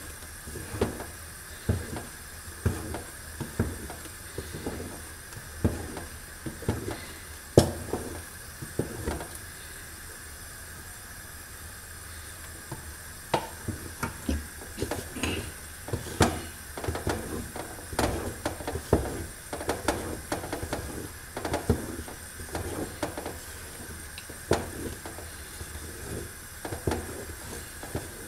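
Wooden spoon stirring thick zrir paste of ground sesame and hazelnuts cooked in syrup in an aluminium pot, with irregular knocks and scrapes against the pot. There is a steady faint hiss underneath. The stirring goes quiet for a few seconds near the middle, then resumes.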